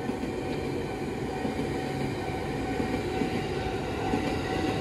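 Ex-JR 205 series electric commuter train (KRL) running past on the rails: a steady rumbling wash of wheel and track noise. A thin steady tone sits above it and fades out near the end.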